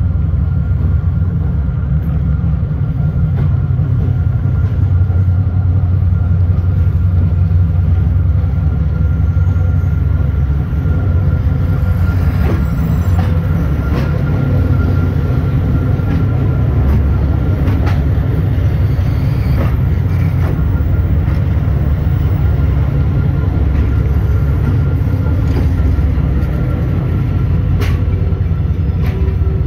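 Passenger train rolling into a station: a steady low rumble of wheels and coaches, with scattered clicks over the rail joints and a faint high steady whine.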